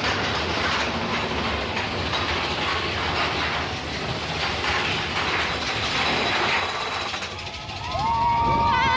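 Mine-train roller coaster rattling along its track at speed, with wind noise over the microphone. Near the end a long, wavering high-pitched squeal comes in.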